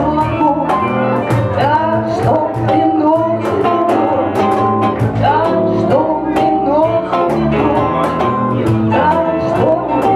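Live band music: a woman singing over electric guitar, keyboard and bass guitar, with a light, steady ticking beat about three times a second.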